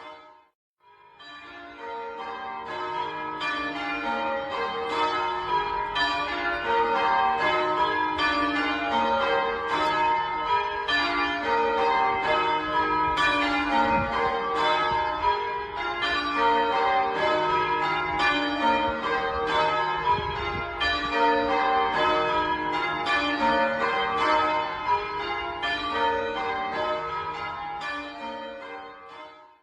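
Carlisle Cathedral's church bells in change ringing, a rapid run of overlapping strokes. After a brief silent break about half a second in, the ringing fades back in and runs on steadily, then fades out at the very end.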